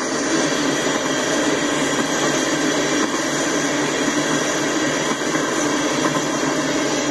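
Freight train cars rolling past: a steady rushing noise of steel wheels on the rails.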